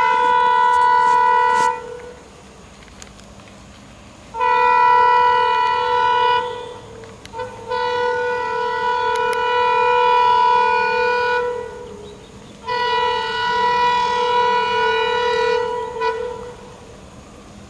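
Diesel locomotive's air horn blown in a series of long, steady blasts as the train approaches: one ending about two seconds in, then three more of three to four seconds each with short gaps between them.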